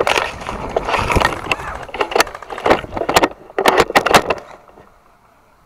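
Leaves and branches rustling, with sharp snapping of twigs, as someone pushes through dense undergrowth close to the microphone. It dies away about four and a half seconds in.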